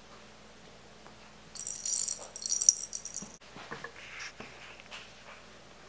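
A cat toy's small bell jingling as it is shaken for about two seconds, cut off abruptly, followed by light scuffs and ticks of kittens' paws on a blanket.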